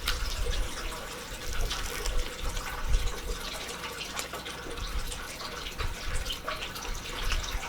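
Steady trickle of running water, with faint scattered clicks and low thumps.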